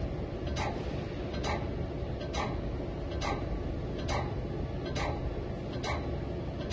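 Vertical CNC wheel lathe running a facing cut across a spinning alloy wheel: a steady low machine hum with a sharp, regular tick a little more often than once a second.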